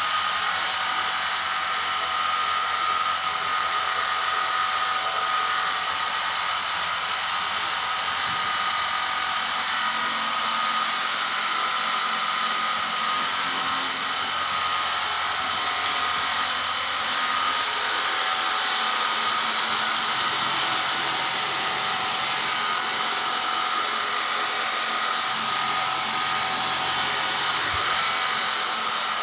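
A steady, even whooshing noise, like air from a running fan or blower, with a few faint steady tones in it and no change in level.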